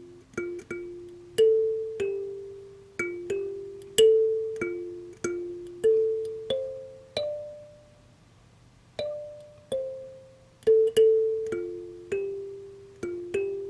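Background music: a slow melody of single struck keyboard notes, each ringing and fading before the next, with a brief pause in the middle.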